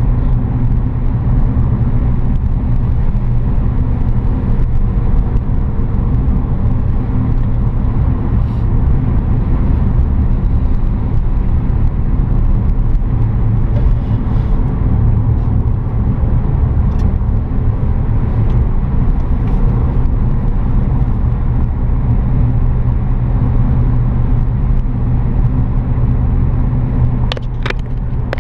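A car driving steadily, a loud, even low rumble of engine and road noise. A few sharp clicks come near the end.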